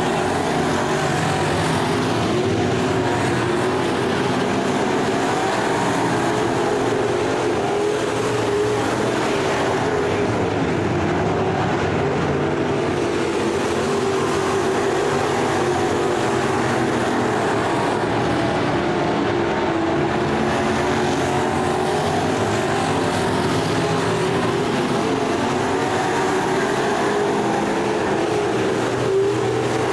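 Engines of several IMCA Sport Modified race cars running together at racing speed, a loud continuous din whose pitch wavers up and down.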